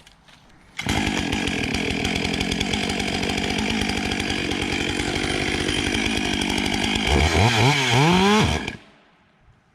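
Stihl MS 661 two-stroke chainsaw with a 36-inch bar, starting abruptly and running steadily as it is driven into chainsaw protective pants. Near the end its revs rise and fall twice at its loudest, then the engine cuts off suddenly, as the pants' fibres wrap into the sprocket and chain.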